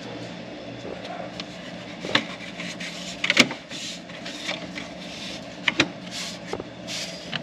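Plastic dash bezel trim being handled and snapped into place: several sharp clicks and knocks, the loudest about three and a half seconds in and a quick pair near the end, with rubbing and rustling between.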